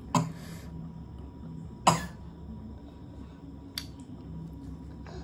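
Sparse eating sounds: a few sharp clicks of a metal fork against a ceramic plate and mouth noises from eating chow mein noodles, the loudest click about two seconds in, over a faint steady hum.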